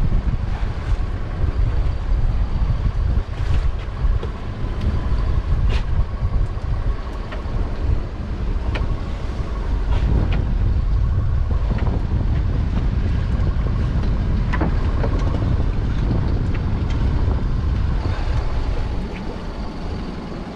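Wind buffeting the microphone on a small open boat at sea, a heavy low rumble, with a faint steady engine hum underneath through the first half and a few light knocks.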